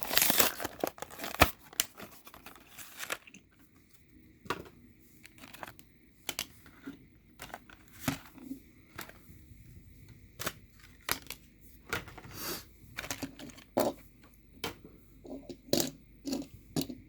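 Die-cast toy car packaging being torn open by hand: dense tearing for the first few seconds, then scattered crinkles and clicks as the plastic and card are worked and the cars are handled.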